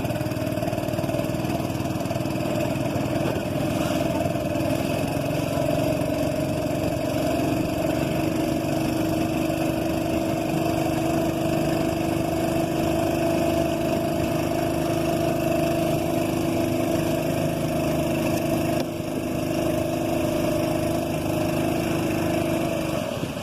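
Boat engine running at a steady speed with an even, unchanging hum, dipping slightly for a moment near the end.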